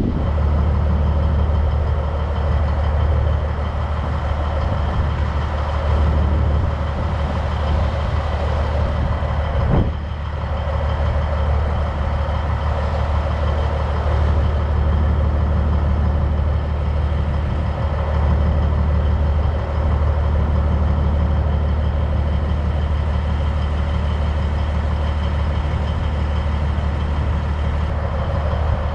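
Semi truck's diesel engine idling with a steady low drone.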